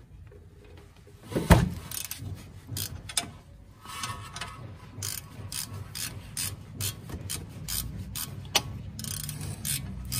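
Hand ratchet wrench clicking in short, irregular strokes as the rear bolts holding a front hub bearing are worked. There is a sharp knock about a second and a half in.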